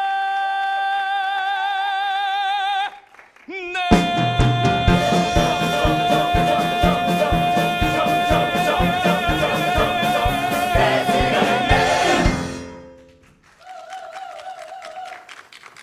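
A musical-theatre song's big finish: a singer holds a long note with vibrato, then about four seconds in the full cast and band come in together on a sustained final chord over steady drum hits, which cuts off sharply after about eight seconds. A brief, quieter held vibrato voice follows near the end.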